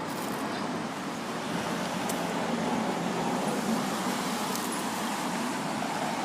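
Steady hum of road traffic from passing cars.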